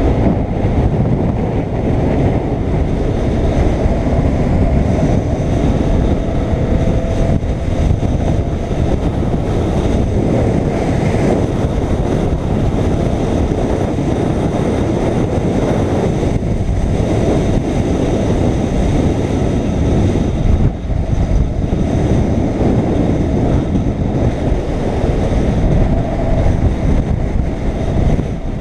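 BMW R850R motorcycle riding at road speed: wind rushing over the camera's microphone over the steady running of its boxer-twin engine.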